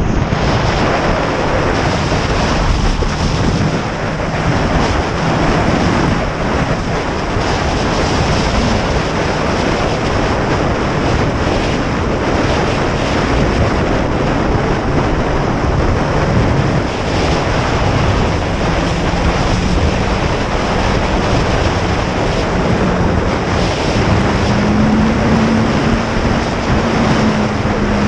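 Loud, steady wind roar buffeting the microphone while riding on a road. A faint low hum of a vehicle sits under it and rises a little in pitch twice in the second half.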